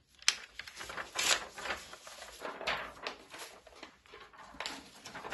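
Pencil scratching on drawing paper in quick, irregular strokes, with some rubbing of the paper on the board.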